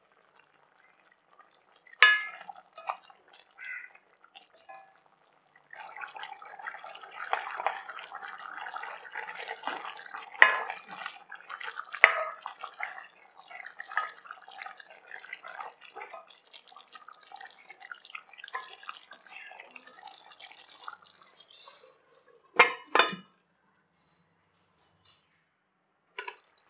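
Thick chicken gravy bubbling in a metal kadai as a spatula stirs and scrapes through it. A glass lid clinks about two seconds in, there are two loud knocks near the end, and the lid clinks again just before the end.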